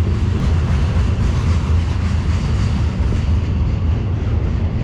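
Wind buffeting the microphone: a loud, steady, uneven rumble with a hiss over it.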